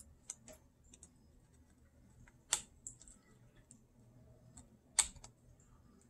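Faint small plastic clicks and taps of fingers handling the battery connector and cable inside an opened ASUS ROG Zephyrus G14 laptop. Two sharper clicks come about midway and about a second before the end.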